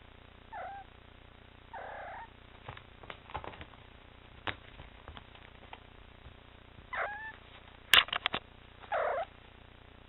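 Domestic cat meowing four times in short calls, two brief chirpy ones and two longer ones. Scattered light clicks and taps come between the calls, with a burst of sharp, loud clicks about eight seconds in.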